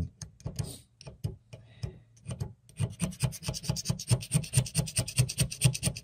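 A knife blade held flat, scraping hard-water lime deposits off a faucet's brass housing. A few separate strokes come first, then from about three seconds in a quick, steady back-and-forth scraping, about six or seven strokes a second.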